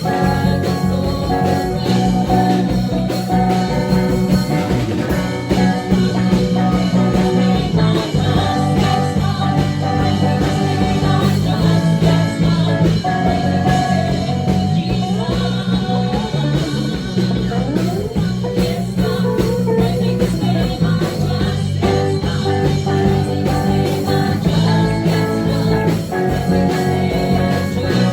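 Praise and worship music: a band with guitar and singing over a steady beat.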